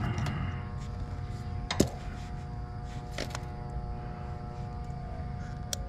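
Sharp clicks and taps of wire connectors and meter test-lead clips being handled at a heat pump's run capacitor, the loudest about two seconds in and another about a second later, over a steady low background rumble.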